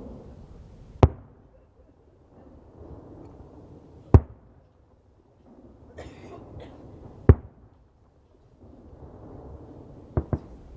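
Fireworks going off: three single sharp bangs about three seconds apart, with a brief hiss just before the third, then two quick bangs close together near the end.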